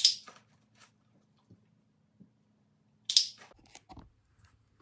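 A dog biting on a treat held out to it: a short sharp crunch, then a second one about three seconds later.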